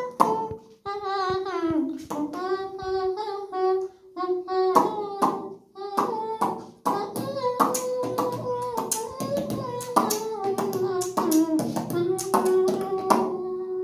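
Vocal instrument mimicry: a man's mouth carries a held, slightly wavering melody line like a wind instrument while sharp mouth clicks and beats keep a rhythm under it, imitating several instruments at once.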